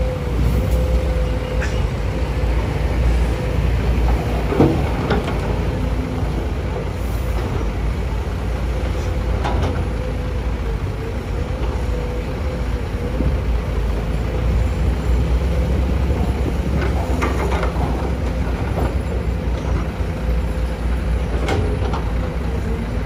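Diesel engines of a CASE CX210B excavator and a Scania dump truck running steadily, with a steady whine over the rumble. A few short knocks and clatters come as the excavator loads soil and rock into the truck's steel bed.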